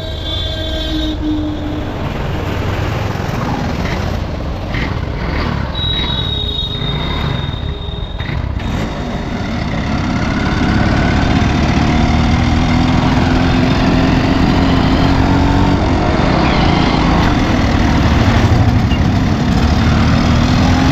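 Hero Honda CD100's four-stroke single-cylinder engine running. About halfway through it pulls away, getting louder, its pitch rising as it gathers speed and rising again near the end.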